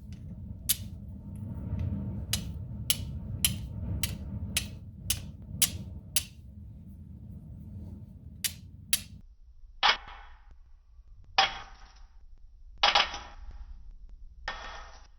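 A hand-forged high-carbon steel flint striker being struck against flint, giving sharp clicks about two a second. Then, about nine seconds in, come four short breathy rushes of noise.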